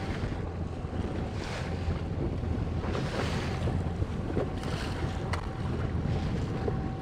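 Wind buffeting the microphone and choppy lake water slapping against the side of a fishing boat, the splashing swelling and fading every second or two, over a faint steady hum.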